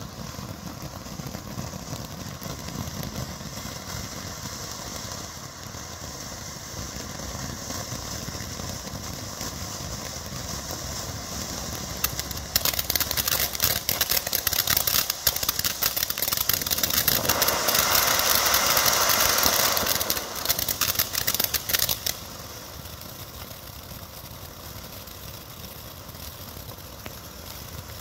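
'A to Z' ground fountain firework burning with a steady hissing spray of sparks. From about twelve seconds in, dense rapid crackling joins the hiss for about ten seconds and is loudest near the middle, then the fountain goes back to the plain hiss.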